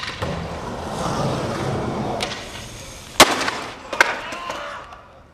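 Skateboard wheels rolling over concrete, then a sharp smack about three seconds in and a smaller one about a second later as the skater bails onto the pavement.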